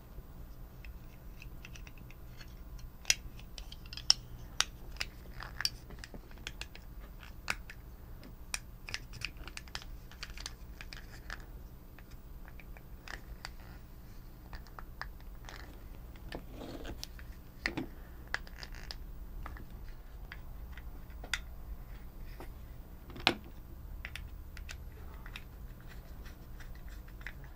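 Small plastic parts of a TOMY FlipBot toy being handled and fitted together: irregular light clicks and scrapes, with a few sharper clicks, over a faint steady low hum.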